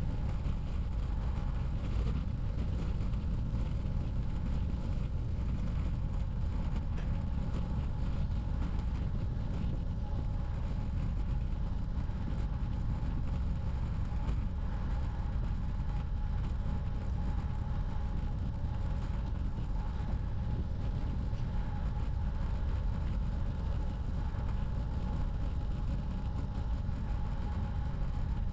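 Steady wind rumble on the microphone and road noise from a bicycle being ridden, with a faint constant whine over it.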